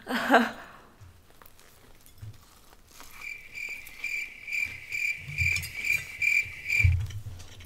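A cricket chirping: a high, even chirp repeated about three times a second for about four seconds, starting about three seconds in and stopping abruptly. Under it are soft chewing sounds, and there is a brief voice sound right at the start.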